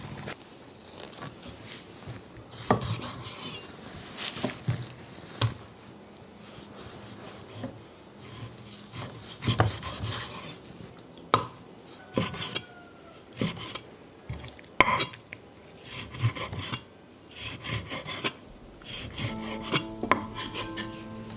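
Rubbing and scraping sounds with scattered sharp knocks, from hands at work. Steady background music comes in near the end.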